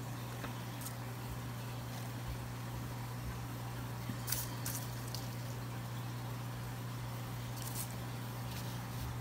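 A steady low hum, with a few faint, short rustles and clicks as dried cannabis buds are handled and dropped into a paper cup on a digital scale.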